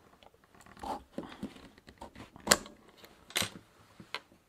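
A few separate sharp clicks and clacks of small plastic and metal bicycle dynamo parts being handled and pulled apart, the loudest about two and a half seconds in.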